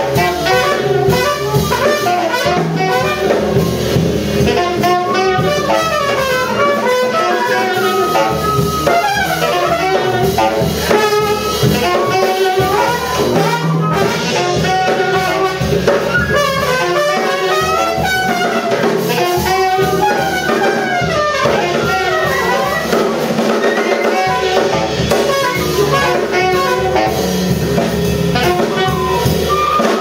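Small jazz ensemble improvising live: flute, trumpet and saxophone play busy, overlapping lines in quick rising and falling runs over a drum kit.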